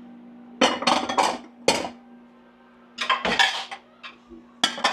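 Glass and ceramic dishes clattering and clinking as they are stacked away into a drawer, in three bursts, over the faint steady hum of a microwave oven running.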